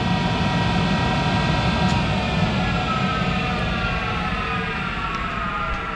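Monarch 10ee lathe's motor-generator drive winding down after being shut off: a whine of several tones falling slowly in pitch over a steady low hum.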